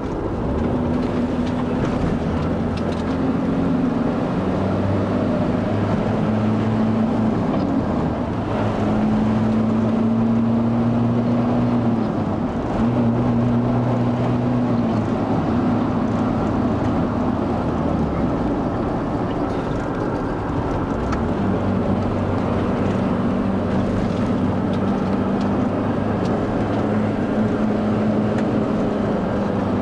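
Car engine running under way, heard from inside the cabin, with steady road and wind noise; the engine note shifts up and down in pitch several times as the speed changes.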